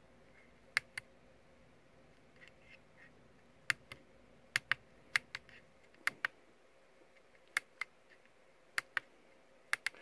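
Small tactile push buttons on a DDS function generator board clicking as they are pressed, about eight presses, each giving a quick double click. The presses step the frequency setting down and switch the output on.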